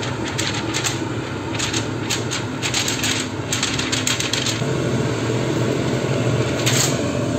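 IKEA UNDERVERK recirculating cooker hood fan blowing, with a sheet of paper held in its airstream fluttering and rattling in quick clusters of clicks. About four and a half seconds in, the fan steps up from second to third speed and its hum grows stronger.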